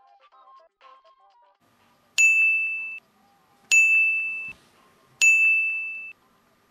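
Electronic ding sound effect, three identical bright chimes about a second and a half apart, each held a little under a second and cut off short. A few faint musical notes come before them.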